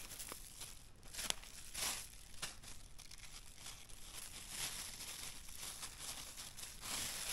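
A bag crinkling and rustling in irregular crackles and snaps as it is handled and filled with mushrooms.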